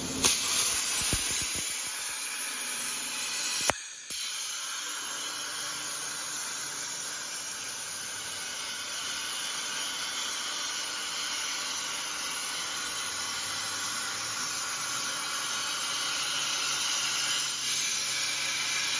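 CNC plasma cutting torch cutting carbon steel plate: a steady, high hiss of the plasma arc and its air jet. About four seconds in there is a sharp click and a short break before the hiss resumes.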